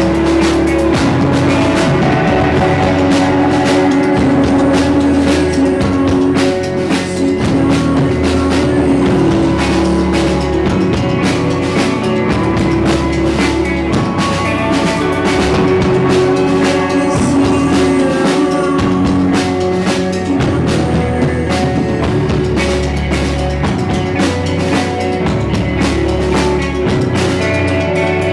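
Live post-rock band playing loud: sustained, layered electric guitars over bass guitar and a drum kit with frequent drum and cymbal hits.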